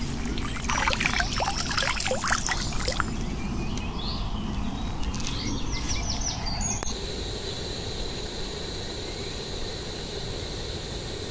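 Pond water splashing and trickling as a landing net is worked in the shallows and lifted, dripping for a couple of seconds, with a few small clicks after. About seven seconds in it gives way to a steady outdoor background hiss.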